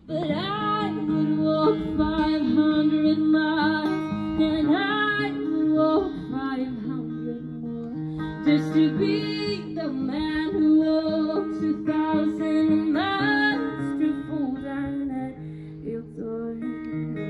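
A woman singing with her own acoustic guitar accompaniment, strummed and picked. Her voice stops near the end and the guitar plays on alone.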